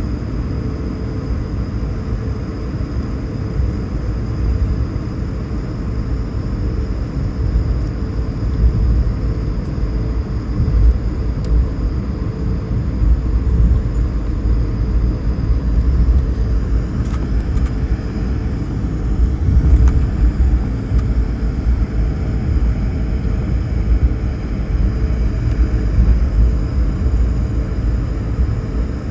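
Airliner cabin noise while taxiing: a steady low rumble of the jet engines at idle and the plane rolling along the taxiway, with a faint steady whine above it.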